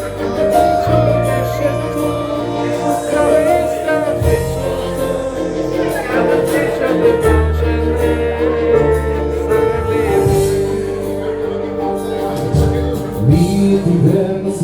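Live band music: an instrumental passage of a Balkan pop song, with sustained melody notes over a steady bass line.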